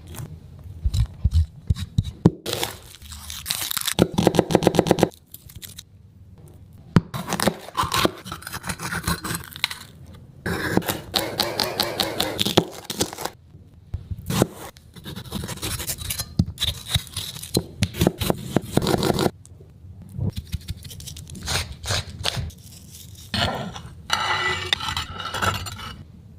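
Kitchen utensil scraping against cookware in repeated bursts of a few seconds each, with clicks and crunching mixed in.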